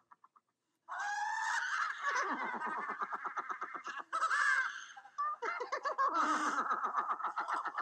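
Animated film soundtrack of a man and a cartoon horse laughing hysterically together in quick, honking bursts, starting about a second in.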